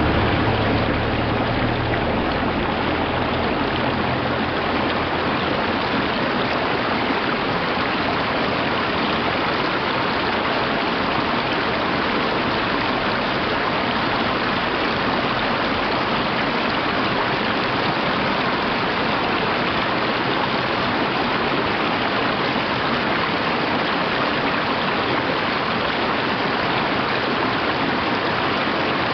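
Mountain stream rushing steadily over rocks and through small rapids.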